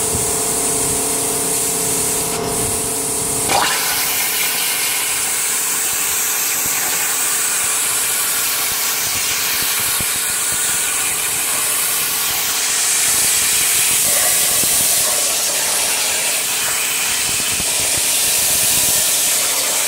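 CNC plasma cutter: a steady machine whine over a hiss of air, then about three and a half seconds in the arc strikes sharply and the loud, steady hiss of the plasma torch cutting steel plate runs on, a little louder near the end.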